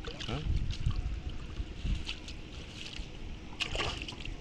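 Shallow water sloshing and splashing around a cast net as it is handled at the surface, with scattered small splashes and one sharper splash near the end.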